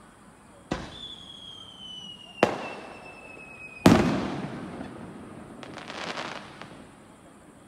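Aerial fireworks: a sharp bang less than a second in, a whistle falling slowly in pitch for about three seconds, a second bang, then the loudest shell bursting about four seconds in with a long rolling echo. A patter of crackling follows around six seconds in.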